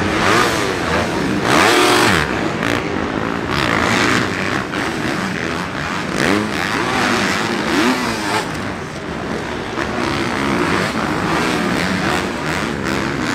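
Four-stroke supercross dirt bike engines revving hard and backing off, with pitch rising and falling repeatedly as the bikes accelerate out of corners and over jumps.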